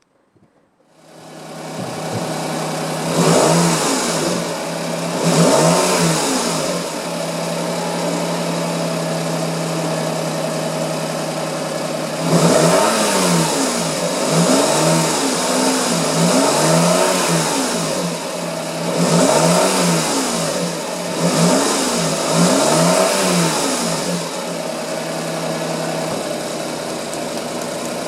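Nissan Moco (MG22S) 660 cc three-cylinder engine idling, with the throttle blipped about eight times in two groups; each rev rises and falls quickly before settling back to a steady idle.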